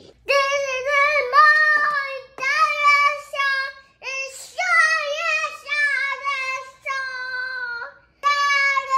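A two-year-old boy singing, several long, high sung phrases without clear words, broken by short pauses.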